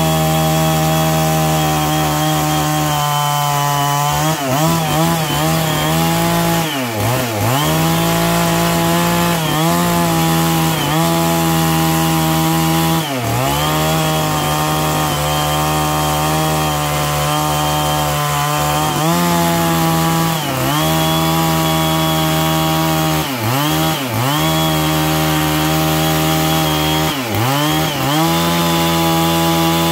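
Stihl MS660 two-stroke chainsaw with a ripping chain, running at high throttle while it rips a larch log lengthwise along the grain. Its steady, high engine note dips briefly and recovers every few seconds as the cut loads it.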